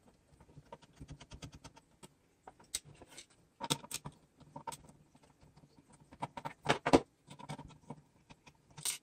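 Screwdriver backing small screws out of a plastic battery compartment: a string of light, irregular clicks and scrapes, with a few louder taps.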